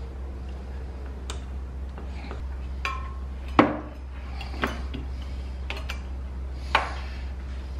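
Tools and small metal hardware being handled at a workbench: a handful of scattered clinks and knocks, the loudest about three and a half seconds in, over a steady low hum.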